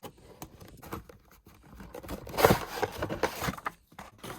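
A toy's cardboard box and packaging being opened by hand: scattered clicks and taps with a louder stretch of scraping and rustling about halfway through.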